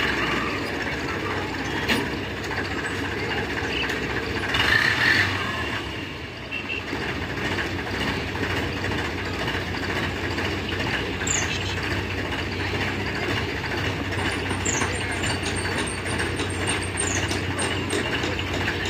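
Tractor diesel engine idling steadily, with a brief louder rush of noise about five seconds in.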